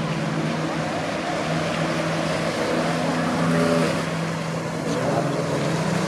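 A boat engine running steadily: a constant low hum with a hiss of wind and water over it.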